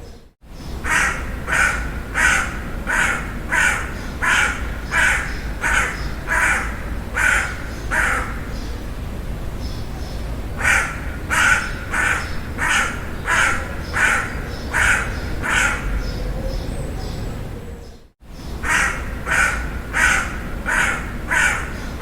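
A crow cawing in runs of short, evenly spaced caws, about one and a half a second, with a pause of a couple of seconds between runs. The sound drops out briefly just after the start and again near the end, then the caws resume.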